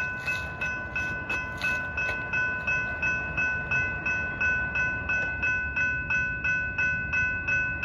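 Railroad crossing warning bell ringing steadily, about three strokes a second, as the crossing gates come down for an approaching train.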